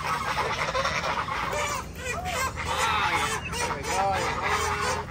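A backyard flock of waterfowl and chickens calling: many short, repeated honking calls over a busy layer of higher chirping and clucking.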